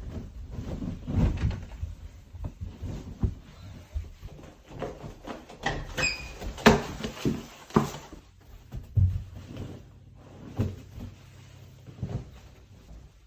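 A series of irregular knocks and clicks, with a short high squeak about six seconds in.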